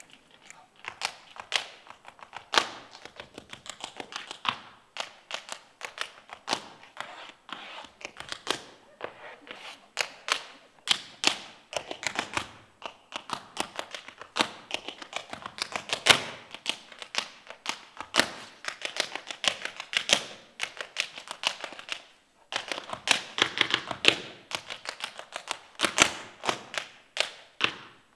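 Tap shoes striking a stage floor in a cappella tap dancing: a running rhythm of sharp metal taps and heavier stamps with no music, thickening into a dense flurry of quick taps about three quarters of the way through.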